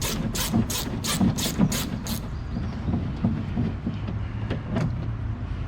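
1/4-inch socket ratchet being worked back and forth on a door-handle bolt, a quick run of ratcheting rasps about four or five a second that stops about two seconds in. The bolt keeps turning without coming out, which the mechanic takes for stripped.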